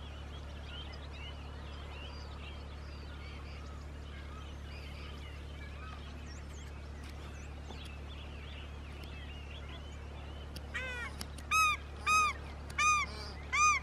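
Faint chirping of small birds, then about ten seconds in paradise shelducks start calling: a string of loud, shrill honks, one every half-second or so, continuing to the end.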